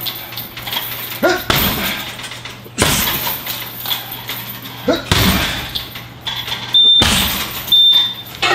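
Bare shins and feet kicking a heavy punching bag, a loud thud every second or two. Near the end a high electronic beep sounds in short repeated bursts.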